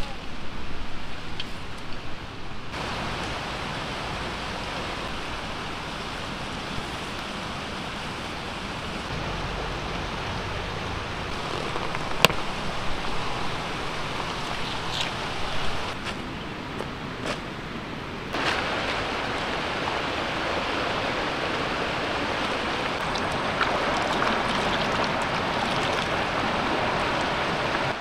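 River water flowing: a steady rushing that grows louder in two steps, about three seconds in and again past the middle. A single sharp click is heard near the middle.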